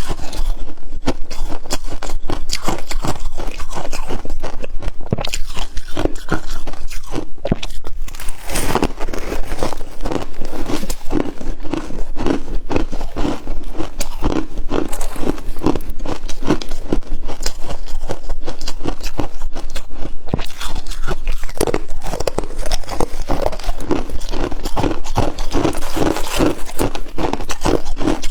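Close-miked biting and chewing of freezer frost: dense, continuous crunching with many small crackles.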